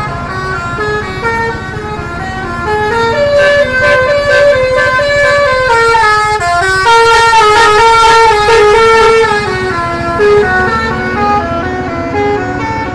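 Bus telolet basuri musical air horn playing a quick melody of short stepped notes, loudest in the middle, over the low rumble of the bus's engine running.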